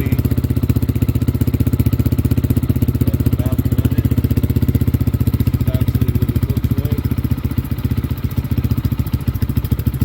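KPM200 motorcycle's single-cylinder engine idling steadily, freshly cold-started, through an aftermarket slip-on muffler with a baffle in it.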